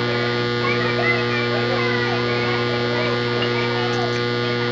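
Steady electrical mains hum made of several fixed tones, with faint chatter from spectators over it.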